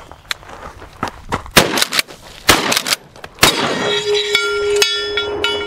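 Three blasts from a GForce Arms 12-gauge pump shotgun about a second apart, with the clack of the pump action being worked between them. After the last shot a struck steel plate target rings for about two seconds.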